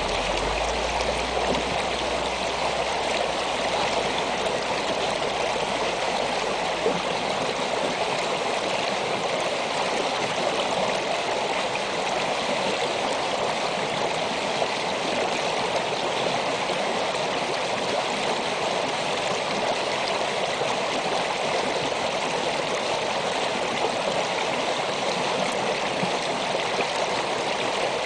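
Shallow snowmelt stream flowing over and around rocks: a steady, even rush and babble of water.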